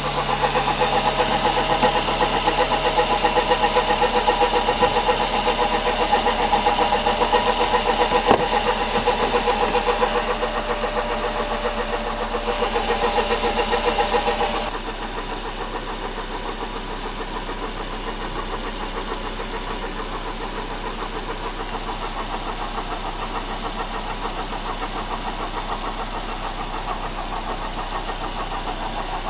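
2006 Suzuki Aerio's 2.3-litre four-cylinder engine running with a racket from its failing water pump. The sound starts abruptly and drops noticeably quieter about fifteen seconds in.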